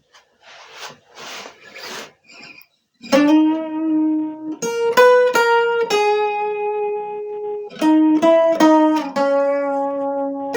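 A few soft rustling noises, then about three seconds in an instrumental intro begins: plucked, guitar-like chords that ring on and change every second or so.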